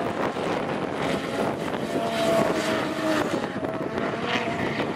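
Two drift cars sliding sideways in tandem, their engines held at high revs over a steady hiss of spinning tyres.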